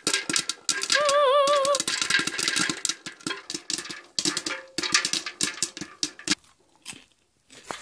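Presto Stirring Popper popping corn: a rapid, dense crackle of kernels bursting under the plastic dome, thinning out and getting quieter near the end. About a second in, a short wavering tone sounds over the popping.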